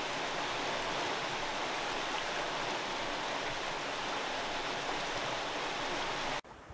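Shallow rocky creek rushing over stones: a steady, even rush of water that cuts off suddenly near the end, leaving only a faint hush.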